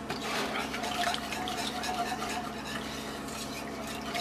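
Wire whisk stirring thick soup in an enamel-lined pot, a quick, continuous run of scraping, clinking strokes of the wires against the pot.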